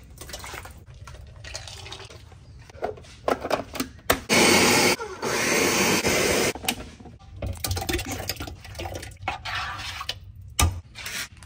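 Countertop blender running in two short bursts about four seconds in, the second a little longer, puréeing tomatoes. Softer kitchen handling around it: canned tomatoes poured into a steel stockpot and sauce stirred with a spoon.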